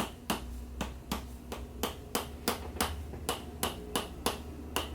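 A steady, even series of sharp clicks or taps, about three a second, over a low hum.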